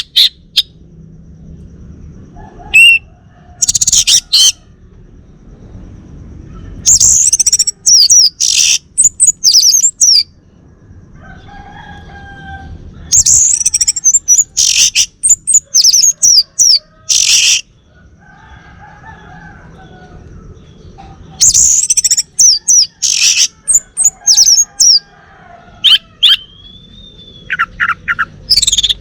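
Male orange-headed thrush singing in loud phrases of rapid, high warbling and sweeping notes, a few seconds apart. Softer, lower chirps fill the pauses.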